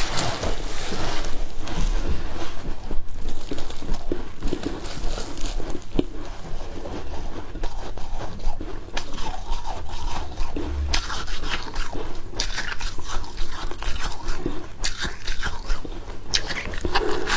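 Close-miked chewing of freezer frost: a steady crackle of ice being crunched between the teeth, with louder crunchy bites now and then.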